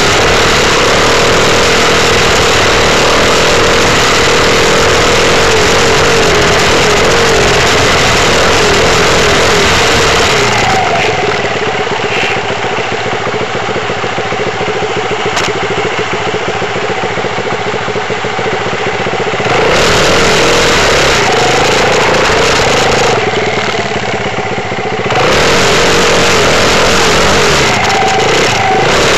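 Dirt bike engine running as the bike is ridden, its pitch wavering with the throttle. About a third of the way in it eases to a quieter, lower running for several seconds, picks up again about two-thirds through, eases briefly, then runs hard again near the end.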